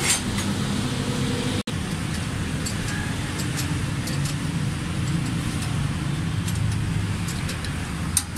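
Steady low hum of motor vehicle engines running, with scattered light metallic clicks and taps of tool work. The sound drops out for an instant about a second and a half in.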